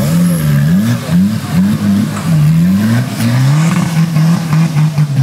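Suzuki Samurai off-road trial vehicle's engine revving hard under load as it claws up a steep dirt slope, the revs swinging up and down repeatedly, then held steadier for the last couple of seconds.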